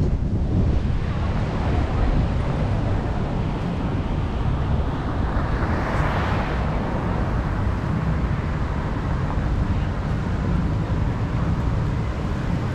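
Road and wind noise in a moving car driving through city traffic: a steady low rumble with wind buffeting the microphone, and traffic noise that swells and fades about halfway through.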